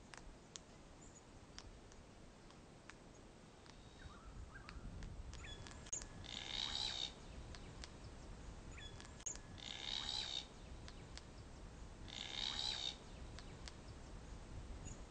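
Glossy black cockatoo calling three times, each call about a second long and a few seconds apart. Faint sharp clicks come in between, from its bill working a casuarina cone.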